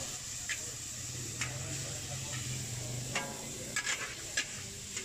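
Mee goreng noodles sizzling steadily in a hot wok, with a metal spatula scraping and clanking against the wok about five times as the noodles are stir-fried.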